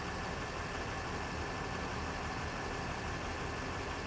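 Steady hum of a car's engine and road noise, even throughout with no sudden sounds.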